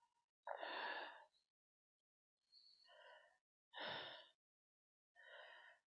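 Faint sighing breaths from a woman, four in a row, the first the longest and loudest.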